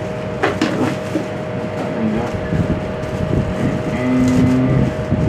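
Clear plastic packaging crinkling as it is handled, over a steady machine hum with two constant tones. About four seconds in, a lower steady drone joins for under a second.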